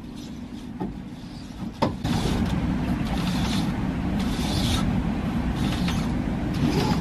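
A click, then a motor starts about two seconds in and runs with a steady low hum as the inflatable dinghy is hoisted out of the water, typical of an electric winch hauling the lifting line.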